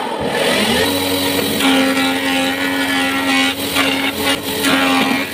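Homemade wood-profiling spindle machine, a 1 HP electric motor driving the cutter shaft through a V-belt, just switched on. Its hum rises and levels off about a second in, then runs steadily with a dense whirr and a few short knocks in the middle.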